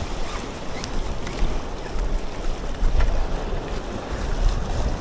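Wind buffeting the microphone, with surf washing over the rocks beneath and a couple of faint clicks.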